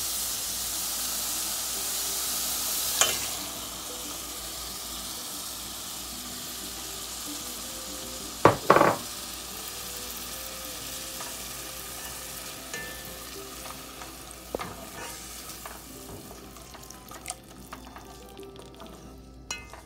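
Thick spice masala with small dried fish sizzling and frying in a pot, stirred with a nylon spatula. The sizzle is loudest at the start and dies down as it goes on. There is a sharp knock about three seconds in and a louder double knock at about eight and a half seconds, with light scrapes and clicks of the stirring after.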